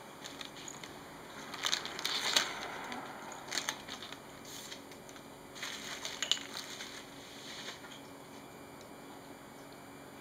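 A cat gnawing and scraping at a silver vine (matatabi) stick: scratchy, crackly crunching in three short spells, the loudest about two seconds in.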